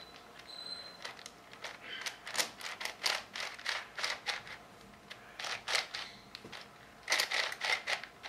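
Plastic speedcube layers being turned quickly in clusters of clacks, with short pauses between runs, as the cube is tested for a catch; it turns without catching.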